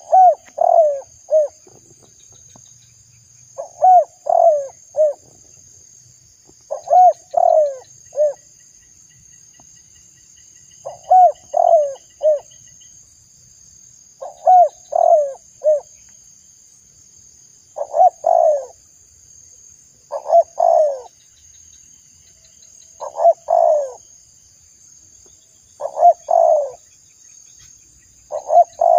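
Spotted dove cooing: the same phrase of three or four short coos, repeated about every three seconds. A thin, steady high-pitched trill runs underneath.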